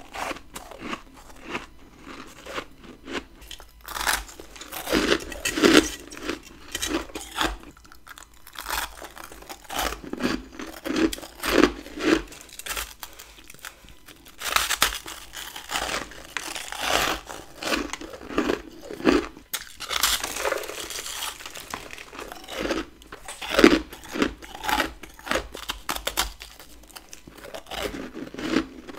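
Close-miked biting and chewing of freezer frost ice, built up from a humidifier in a deep freezer: an irregular string of crisp crunches, at times several in quick succession.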